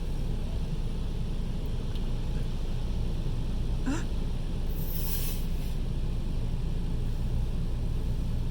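Steady low rumble heard from inside a car's cabin as it goes through an automatic car wash. A brief rising squeal comes about four seconds in, followed by a short hiss.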